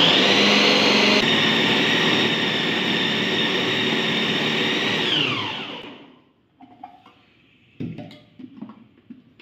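Preethi Zodiac mixer grinder's motor running with the kneading blade in the food processor bowl, mixing chapati dough: a loud, steady whine. About five seconds in it is switched off and the whine falls in pitch as the motor spins down, followed by a few light knocks.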